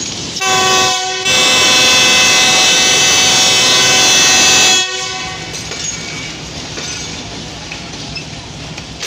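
Departure horn of a Pakistan Railways GEU-40 diesel locomotive: a short blast about half a second in, then a long steady blast of about three and a half seconds, several tones sounding together as a chord. Afterwards a steady train rumble.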